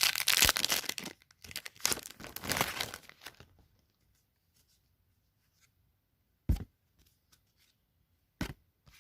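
A baseball card pack's wrapper being torn open and crinkled for about three seconds, then two short knocks later on.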